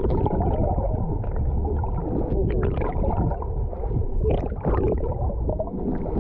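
Muffled gurgling and sloshing of water, heard through a camera dipped underwater, with a few sharp clicks and knocks.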